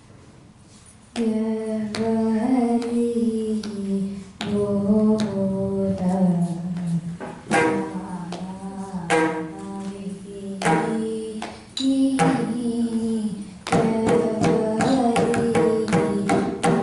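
A girl singing a Carnatic vocal line, accompanied by a mridangam. The singing starts about a second in, with occasional drum strokes at first and quick, steady drumming in the last few seconds.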